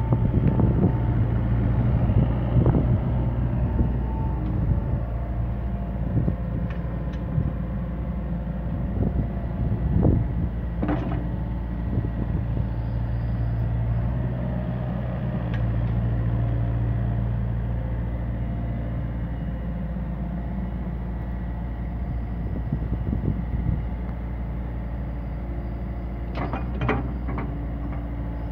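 Yanmar ViO57 mini excavator's diesel engine running steadily as the boom, arm and bucket are worked, the engine note strengthening for several seconds from about ten seconds in. A few sharp metallic knocks come about ten seconds in and again near the end.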